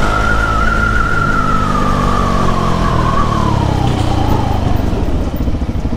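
Motorcycle engine running while riding; its pitch falls steadily as the bike slows. Near the end it settles into an even, pulsing idle.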